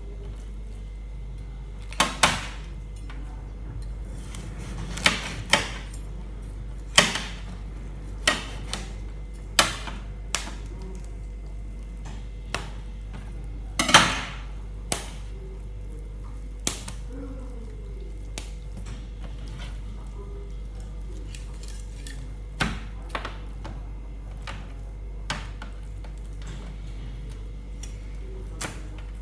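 Knife strikes knocking on a cutting board while fish is cut up: single sharp knocks every second or few seconds, irregular, the loudest about halfway through.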